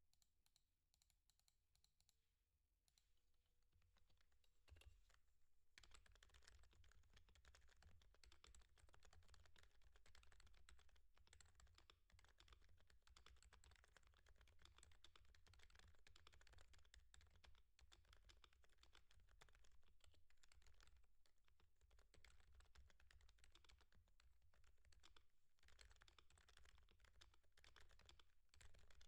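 Typing on a Topre Realforce R3HD21 keyboard with electrostatic capacitive key switches: a quick, irregular run of key strokes, sparse at first and settling into fast continuous typing about six seconds in. It is recorded at a low level.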